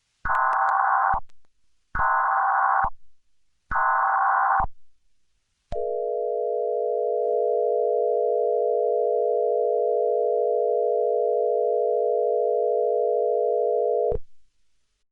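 Emergency Alert System alert opening: three short screeching bursts of digital header data, each about a second long, then a steady two-tone attention signal lasting about eight seconds that cuts off suddenly.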